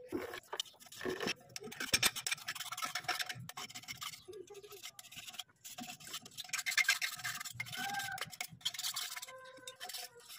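Thin metal blade scraping rust off the gasket face of an engine thermostat housing, in bursts of rapid scratchy strokes with short pauses between.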